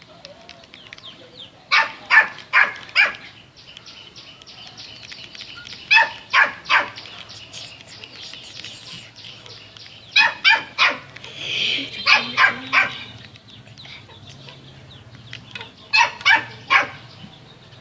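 A dog barking in five bursts of three or four quick barks each, a few seconds apart.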